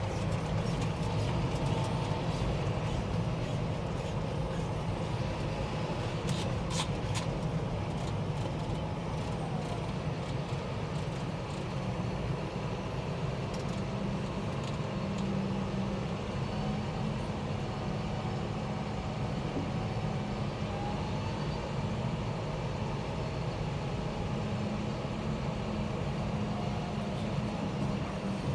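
John Deere tractor engine running steadily under load while hauling a grain trailer, a deep even drone, with a few sharp rattles about six to seven seconds in.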